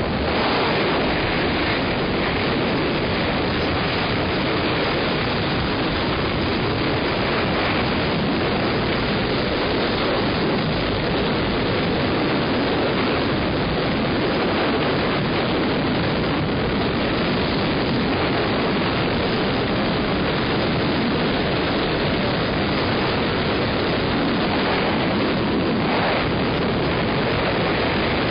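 Steady rushing wind buffeting the microphone, an even, unbroken roar typical of a tandem skydive in the air.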